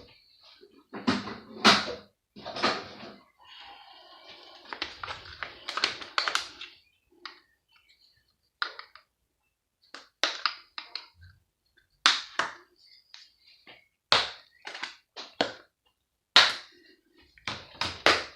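Irregular clicks, knocks and clatters of hand tools working on a large metal pump casing, with a longer scraping rattle about four seconds in.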